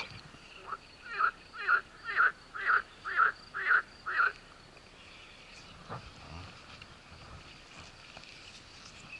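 A frog croaking in a run of about eight short, evenly spaced croaks, roughly two a second, that stop about four seconds in.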